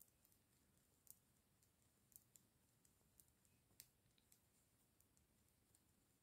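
Knitting needles clicking faintly and irregularly as stitches are worked, over near silence.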